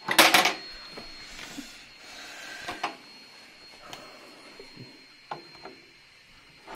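A cordless drill-driver runs briefly, about half a second, driving a hinge screw into a wooden board. It is followed by scattered light clicks and knocks from handling the hinge and board, and another short burst at the end.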